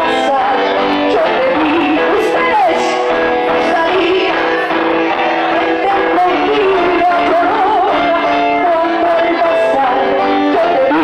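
Live band music played loud in a hall: held chords with a wavering sung melody over them and scattered percussion strikes.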